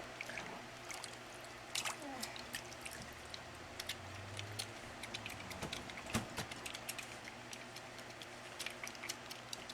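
Wet hands rubbing a bar of soap into a lather, giving soft wet squishing with many small scattered clicks.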